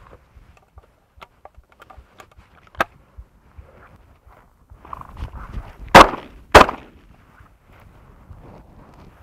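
Two 12-gauge shotgun shots about half a second apart, a double from a Stoger side-by-side fired at flushing quail. A single sharp click comes nearly three seconds in, and footsteps rustle through dry grass just before the shots.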